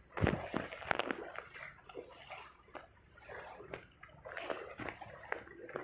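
Floodwater splashing and sloshing in irregular strokes, the loudest near the start.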